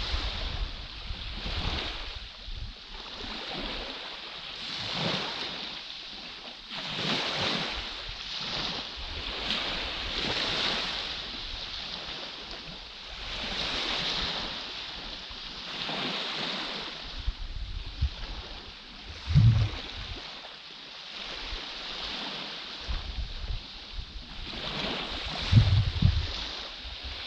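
Small waves breaking and washing up a sandy beach, a rush of surf swelling and fading every two to three seconds. A couple of gusts of wind buffet the microphone in the second half.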